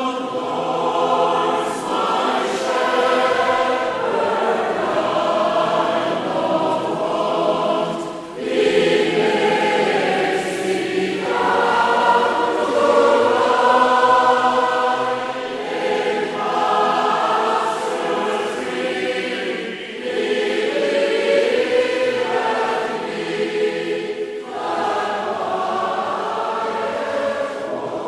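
Choral singing in slow, held phrases, with short breaks between phrases every few seconds.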